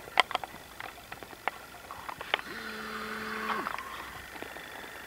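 Footsteps crackling through dry leaves and twigs on the forest floor, with sharp snaps scattered throughout. About two and a half seconds in, a steady low tone sounds for about a second and then drops away.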